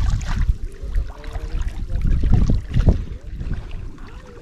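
Water sloshing and splashing around someone wading in shallow water while working a cast net, with a few louder splashes about two to three seconds in.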